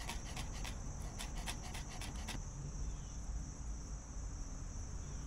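Chef's knife chopping parsley on a plastic cutting board: a quick run of about a dozen chops, four or five a second, that stops about two and a half seconds in.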